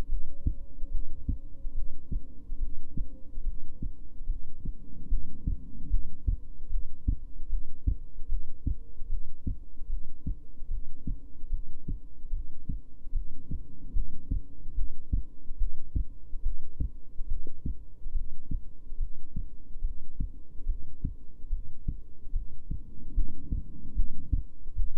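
Human heartbeat heard close up, a steady run of low lub-dub thuds at about 72 to 74 beats a minute. The uploader asks whether it holds a gallop rhythm, an extra third or fourth heart sound.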